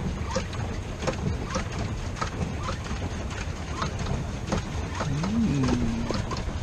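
Pedal boat underway: its pedal drive and paddle wheel knock and click irregularly over the churning of water. A brief low hum rises and falls about five seconds in.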